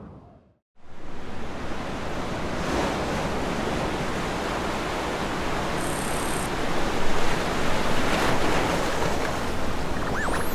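Ocean waves and wind on an open sea, a dense steady surge of surf that starts abruptly after a moment's silence near the start. Near the end, sweeping electronic tones come in.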